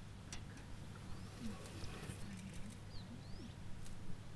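Faint outdoor birdsong: a few short, curved high chirps and some soft low calls, over a steady low hum and a few small clicks.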